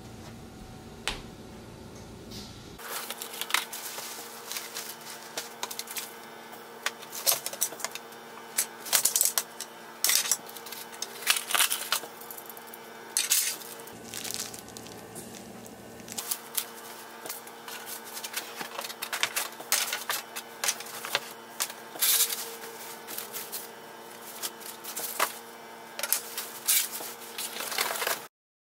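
Flat-pack furniture parts and packaging being handled and unpacked: frequent irregular clicks, taps, clatters and rustles of cardboard, plastic and loose hardware, over a steady low hum.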